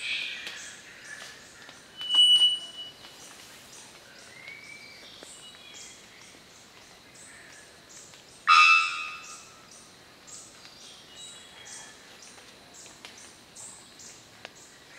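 Male three-wattled bellbird calling with two loud notes. About two seconds in comes a short, high, penetrating whistle; about eight and a half seconds in, an abrupt loud note with several tones at once, fading over about a second. A faint, rapid high ticking, about three a second, runs underneath.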